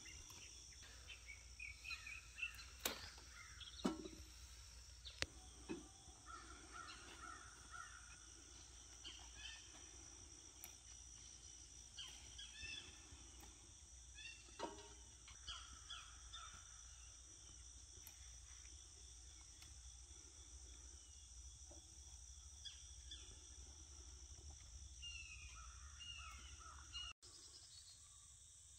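Faint early-morning rural ambience: a steady high drone of crickets and other insects, with crows cawing and other birds calling. A few sharp clicks stand out within the first several seconds and again about halfway.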